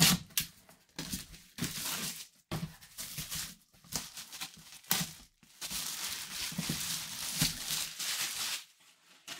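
Plastic shrink wrap being torn and peeled by hand off a cardboard box, crinkling and crackling in irregular bursts, dying away shortly before the end.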